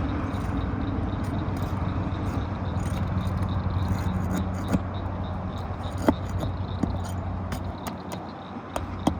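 A shingle nail-removal tool scraping and catching under asphalt roof shingles as the nails are worked out, with a few sharp clicks, over a steady low hum.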